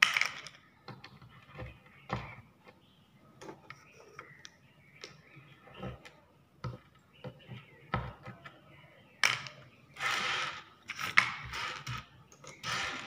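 Irregular light clicks and taps of a white plastic clip pinching custard apple seeds and dropping them into a paper cup on a table. A run of louder rattling and rustling in the last few seconds as the seed pile is handled.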